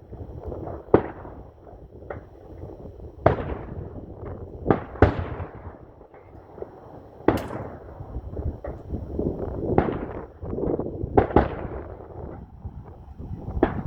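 Fireworks exploding: about a dozen sharp bangs at uneven intervals, each trailing off, with rumbling and crackling between them.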